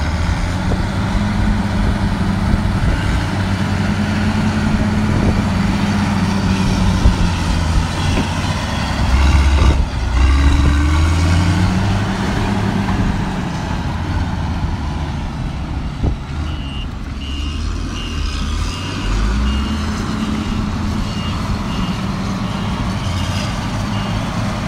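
Caterpillar 120K motor grader's diesel engine running under load, its pitch rising and falling as the machine works, with a heavier low rumble about ten seconds in. In the second half a reversing alarm beeps steadily for several seconds.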